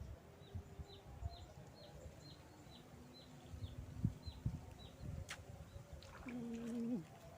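A small bird repeating short, high, falling chirps, about two a second. A few soft low knocks are heard, and near the end a brief steady low tone.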